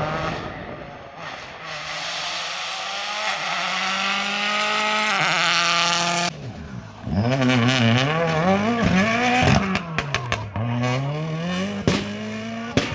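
Rally car engines at high revs. First one engine is held at high revs, its note slowly climbing, until it cuts off abruptly a little after halfway. Then an engine's revs rise and fall repeatedly through gear changes and lifts, with several sharp pops and cracks.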